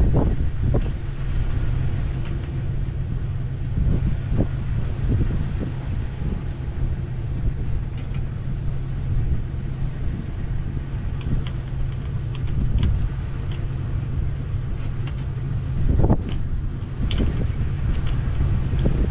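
Scattered wooden knocks and thuds from a homemade plywood-and-2x4 pickup ramp being handled at the tailgate, over a steady low rumble; the loudest thud comes about 16 seconds in.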